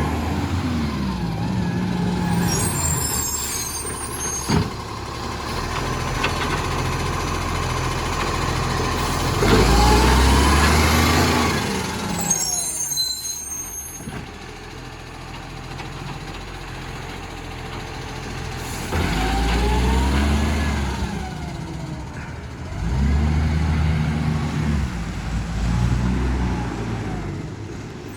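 Rubbish truck's diesel engine running and revving up and down several times; the truck has an exhaust leak. Two short air-brake hisses cut in, a few seconds in and about halfway through.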